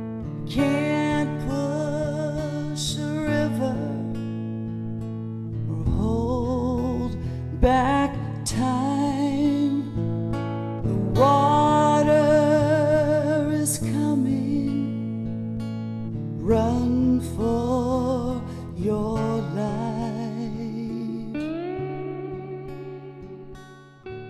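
Slow background music: a wavering lead melody with slides over held low notes, fading out at the end.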